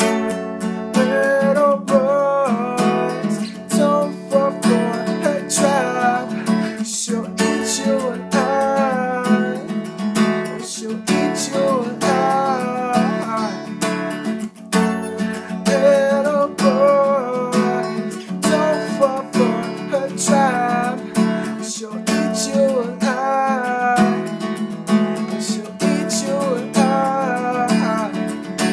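Acoustic guitar strummed in a steady rhythm, with a wavering melody line running above the chords.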